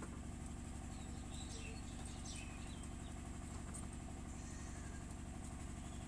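Steady low engine hum, with a few faint bird chirps above it.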